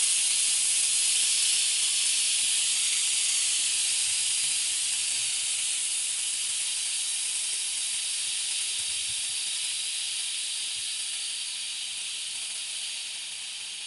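Pressure cooker venting its steam through the whistle vent in a steady high hiss that slowly fades as the pressure drops: the cooker is being depressurised after cooking.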